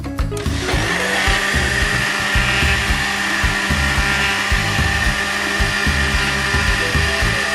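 An Ikon countertop blender is switched on about half a second in and runs steadily with a high whine as it mixes a jug of flour-and-egg pancake batter.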